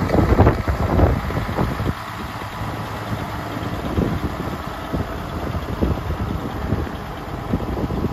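Diesel truck engine idling steadily, likely the Freightliner's Cummins ISB straight-six, with irregular crunching footsteps on snow that are heaviest in the first two seconds.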